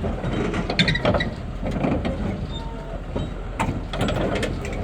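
Heavy machinery being loaded onto a truck: a steady low engine drone under irregular metallic clanks and clicks.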